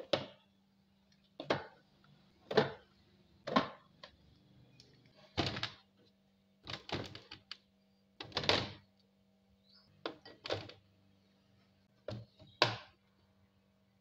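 Plastic drink bottles being set one after another into a refrigerator door shelf: about a dozen short knocks and clatters at uneven spacing, some in quick pairs. A steady low hum runs underneath.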